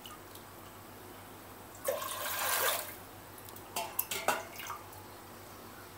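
Water poured from a steel tumbler into a pressure cooker, one measured tumblerful at a time: a short splashing pour about two seconds in, then a few metal clinks as the tumbler dips back into a steel water pot.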